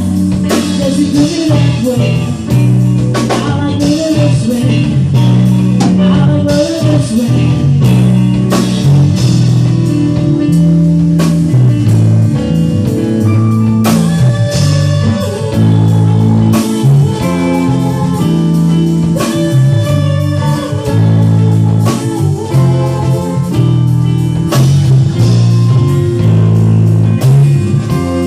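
Band music with no lyrics sung: guitar playing over bass and a drum kit, in a steady groove.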